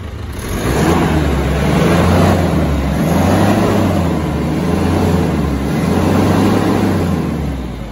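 Mazda Bongo's WL 2.5-litre four-cylinder diesel engine revved up from idle about half a second in and held high through three swells, then dropping back toward idle near the end. It pulls strongly, a sign of an engine in good health.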